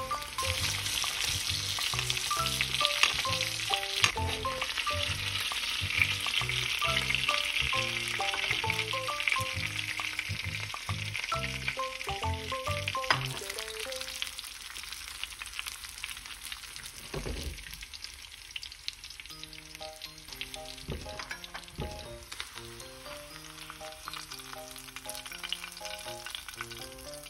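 Salmon steaks and garlic frying in butter and oil in a stainless steel pan, a steady sizzle with a few clicks of the spatula as they are basted. The sizzle drops lower about halfway through, with light background music underneath.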